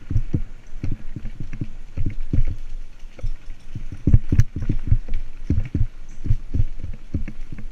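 Mountain bike jolting fast over a bumpy dirt singletrack: irregular low thumps and knocks, several a second, carried through a helmet-mounted camera.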